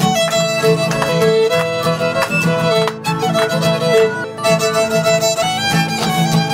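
A fiddle playing a tune over strummed acoustic guitar, the fiddle melody stepping up and down in pitch.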